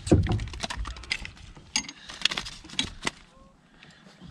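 Handling noises aboard a fishing kayak: a dull thump at the start, then about half a dozen sharp clicks and light rattles of rod, line and tackle as a just-landed bass is handled, growing sparse near the end.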